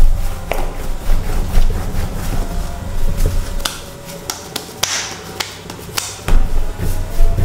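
Martabak telur dough being kneaded by hand on a marble slab: repeated dull thuds and rubbing as the dough is pushed and folded against the stone, with scattered sharp clicks. The thuds pause for a couple of seconds in the middle, then start again as the dough is gathered into a ball.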